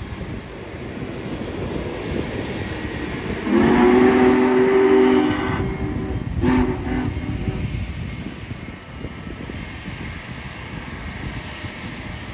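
A locomotive's multi-note chime sounds one long blast of about two seconds, then a short blast, over a steady rumble and wind.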